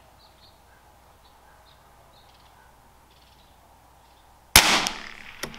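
A single shot from a Savage Mark II TR bolt-action .22 LR rifle firing standard-velocity SK Pistol Match ammunition, about four and a half seconds in, sharp and loud with a short echo, followed by a couple of clicks from the bolt being worked. Faint bird chirps sound before the shot.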